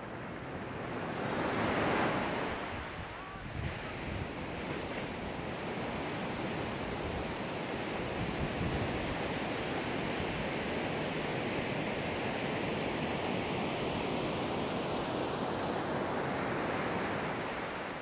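Small sea waves breaking on a sandy beach: one wave crashes about two seconds in, then a long steady wash of surf and foam running up the shore, easing off near the end.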